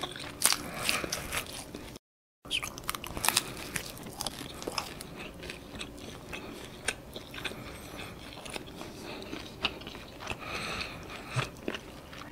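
A person chewing crunchy toasted sourdough grilled cheese, a run of crisp crunches as the crust breaks.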